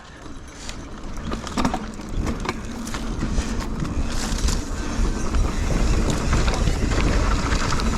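Mountain bike descending a dirt trail: wind buffeting the microphone in a heavy rumble, with tyre noise and scattered knocks and rattles from the bike, growing louder as speed builds.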